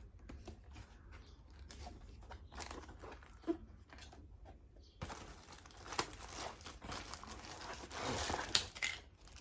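Packaging being torn open and handled: crinkling and tearing rustles with a few sharp clicks. Sparse at first, then continuous rustling through the second half.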